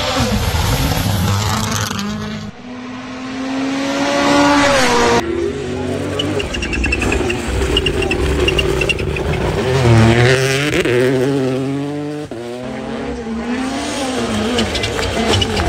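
Rally cars' turbocharged four-cylinder engines running flat out as the cars pass one after another on a gravel stage. Each engine climbs sharply in pitch and breaks off at the gear changes.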